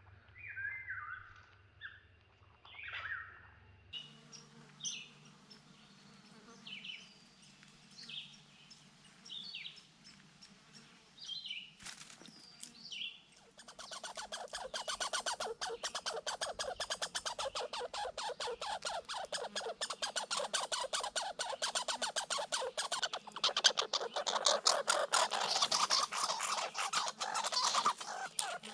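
Small birds chirping in short, scattered notes. About halfway through, a loud, rapid chattering rattle starts and runs on, typical of red squirrels' territorial chatter in a fight over food.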